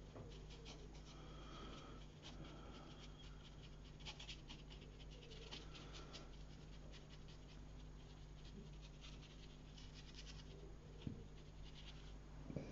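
Near silence: a low steady electrical hum, with faint scratchy ticks of a watercolour brush working on paper and soft breathing close to the microphone.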